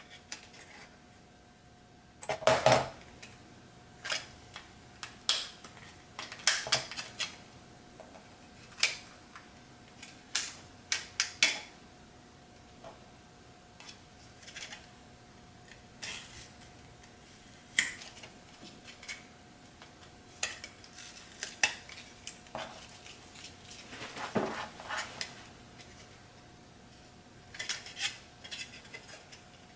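Scissors snipping masking tape on a hard plastic drone canopy, then hands handling the canopy and peeling the tape: scattered sharp clicks, snips and rustles at irregular intervals, the loudest about two and a half seconds in and again a few seconds before the end.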